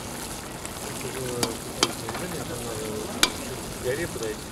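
Rice and water bubbling and sizzling in a kazan of plov over a wood fire while a metal skimmer stirs and smooths the rice. There are three sharp clicks during this.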